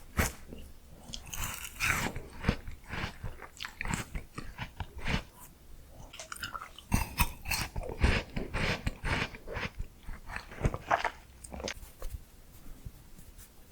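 Close-miked eating of miniature ice cream: irregular crunchy bites and chewing.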